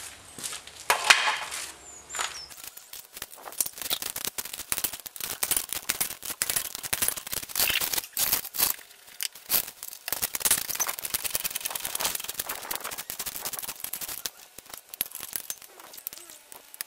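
Wheel bolts being undone with a tool: a loud knock about a second in, then long stretches of rapid, irregular clicking and rattling.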